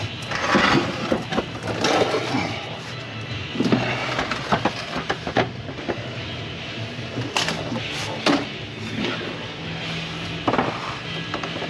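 Background music, with scattered sharp clicks and knocks from hands and tools working on the truck's wiring and parts.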